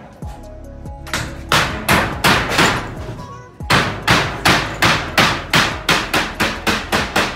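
Hammer blows on roof construction: a few spaced strikes, then a steady run of blows that quickens to about three or four a second near the end.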